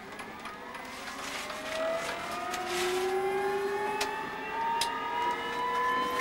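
Aérospatiale Lama helicopter's Turbomeca Artouste turbine spooling up at start-up: a whine of several tones rising slowly in pitch and growing louder.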